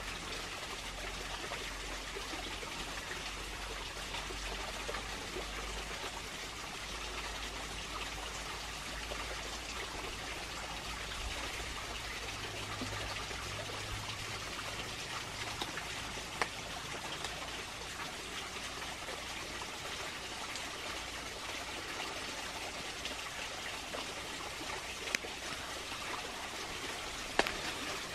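Steady trickle of flowing water, like a small stream, with a few faint taps near the end.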